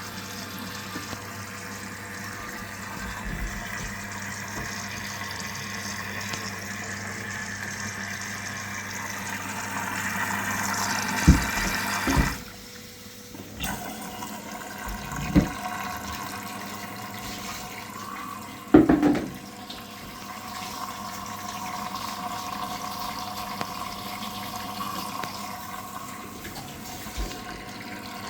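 Water running steadily over a low hum, with a few separate knocks in the middle stretch and one brief quieter moment.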